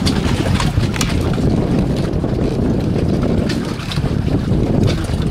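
Wind buffeting the microphone in a steady low rumble, with a few sharp clicks from hands and pliers working at the fittings of a stainless steel soda keg.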